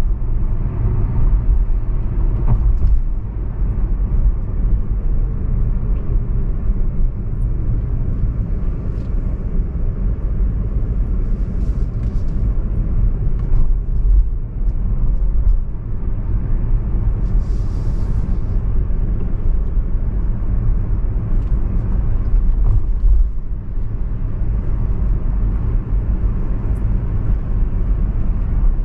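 Car driving on city streets: a steady low rumble of engine and tyre noise, with a brief hiss about 18 seconds in.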